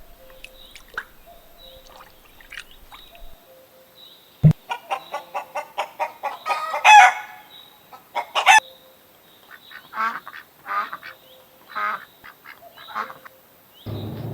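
Poultry calling. A quick run of short calls starts about a third of the way in, two loud harsh calls follow near the middle, and single calls come every second or so after that.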